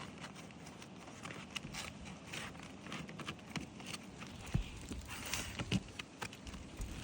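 Irregular scuffs, crackles and knocks on an asphalt shingle roof, from shingles being handled and lifted during a repairability check. Two sharper knocks stand out past the middle.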